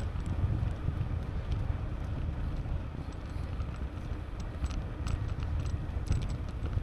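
Wind rumbling on the microphone of a camera carried on a moving bicycle, with scattered faint light ticks over it.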